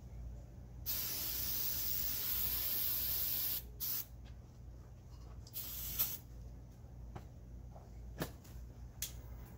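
Aerosol can of starting fluid hissing as it is sprayed into the gap between a tractor tire's bead and rim: one long burst of about three seconds, then two short bursts. This loads the tire with ether vapour that will be lit to pop the bead onto the rim.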